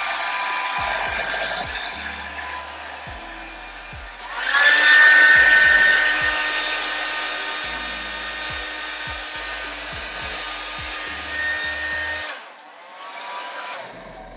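Blow dryer running to dry freshly airbrushed colour enhancement, a steady rush of air with a motor whine. It eases off, spins up louder again about four seconds in, then winds down and stops near the end.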